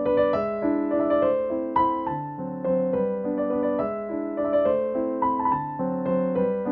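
Background piano music: a melody of single notes moving over held lower chords.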